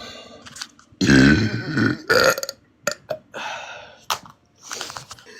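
A woman burping: one long, deep burp about a second in, then a shorter one, followed by smaller sounds.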